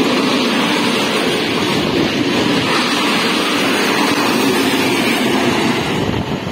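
Freight train's open wagons rolling past close by: steady, loud noise of steel wheels on the rails. The train's ST44 diesel locomotive at the rear comes past about four seconds in. The sound eases and changes near the end.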